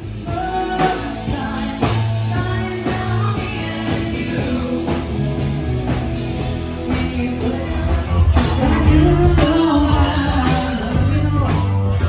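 Live rock band playing: electric guitars, bass and drums with a woman singing, loud and steady, starting abruptly.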